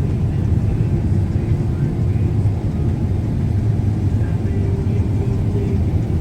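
Heavy vehicle engine running steadily, a low rumble with a faint hum that comes and goes above it.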